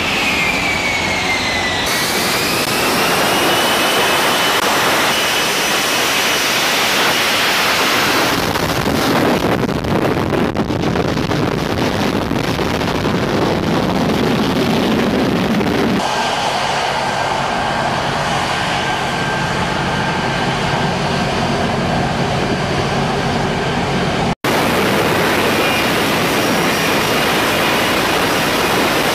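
F-35B jet in a hover for a vertical landing: a loud, steady jet rush with a whining tone that falls and then rises near the start. The sound changes abruptly a few times and drops out for an instant near the end.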